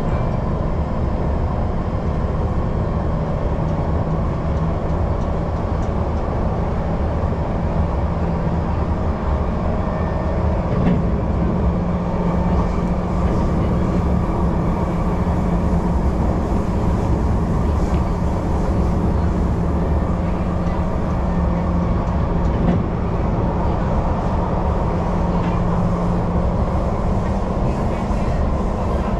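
Singapore MRT train running at steady speed, heard inside the carriage: a continuous rumble of steel wheels on the rails with a steady hum over it.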